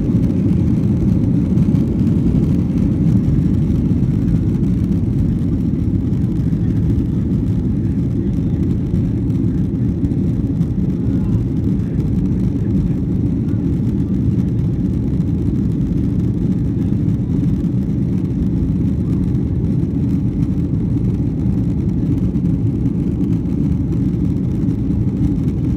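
Engine and airflow noise inside the cabin of a Boeing 737-900 at takeoff thrust from its CFM56-7B turbofans: a steady low roar as the jet leaves the runway and climbs.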